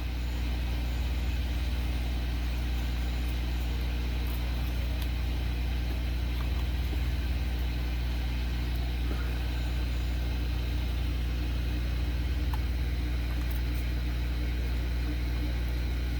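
Hot air rework gun blowing steadily with a low, even hum while it heats the solder under a laptop motherboard's mouse-button switch.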